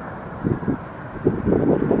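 Jet airliner engines rumbling, growing louder in the second half, with wind buffeting the microphone.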